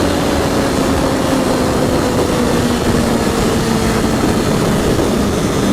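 Triumph Daytona 675R's inline three-cylinder engine running at a steady cruise, its pitch slowly falling as the revs ease off, under loud wind rush on the microphone.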